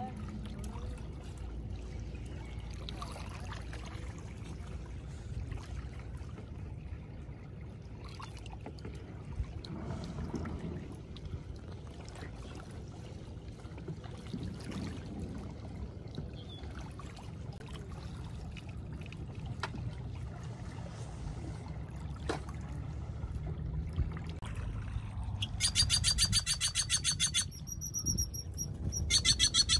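Small waves lapping and trickling at a stony lakeshore over a steady low rumble. Near the end a bird gives a loud, rapid rattling call followed by high thin whistles, then rattles again, typical of a great-tailed grackle.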